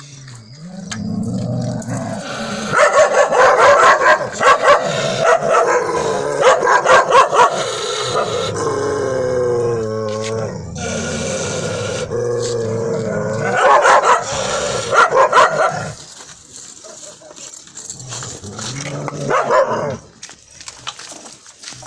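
Dogs barking, yelping and whining in a loud, excited run, with one long whine falling in pitch about nine seconds in. Quieter yips come back near the end.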